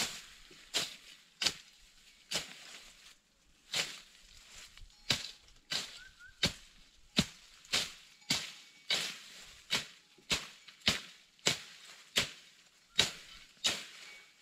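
A blade chopping at wood in a steady rhythm, about three strokes every two seconds, each a sharp hit with a brief rustling tail, pausing briefly once near the start.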